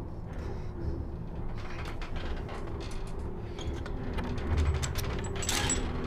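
Chairlift's metal frame and loosening bolt creaking and clicking irregularly, with a louder sharp metallic squeal about five and a half seconds in, over a low steady rumble.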